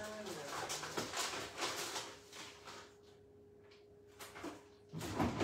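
A refrigerator being searched: light knocks and clatters of things being moved, a quieter stretch with a faint steady hum, then a louder low thump near the end as a door is shut.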